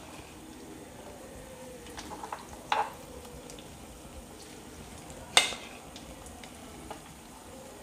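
Marinated chicken pieces shallow-frying in oil in a pan with a soft, steady sizzle. A few light clicks come about two to three seconds in, and one sharper click a little past five seconds.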